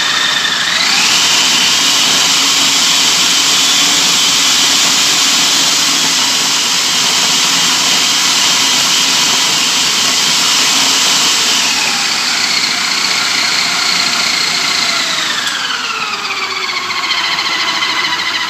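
Food processor motor running as it mixes pie dough, a steady whine that rises in pitch about a second in and drops lower over the last several seconds as it slows.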